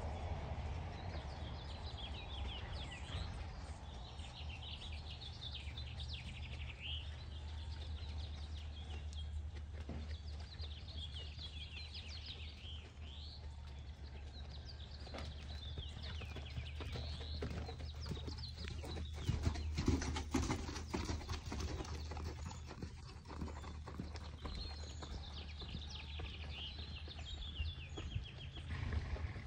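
Horse's hoofbeats on sand arena footing, louder as the horse passes close by a little past halfway and fainter as it moves away, over a steady low rumble. High chirping, likely birds, comes and goes throughout.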